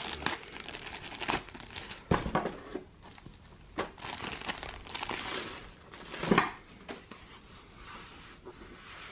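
Rolled neoprene play mats being lifted out of a cardboard game box and unrolled by hand: rustling and crinkling handling noise with a few short knocks, the loudest about six seconds in.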